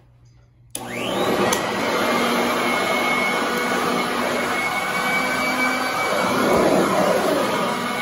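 Royal commercial upright vacuum switched on about a second in, its motor spinning up with a rising whine, then running steadily as it is pushed over carpet.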